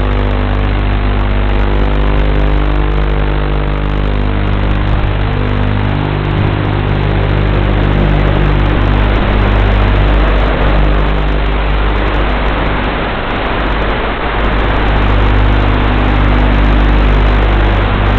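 FPV quadcopter's motors and propellers running, a continuous hum and whine over a dense hiss. Its pitch shifts up and down with the throttle.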